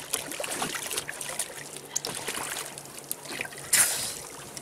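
Water splashing and lapping as a swimmer paddles in the water, with one louder splash about four seconds in.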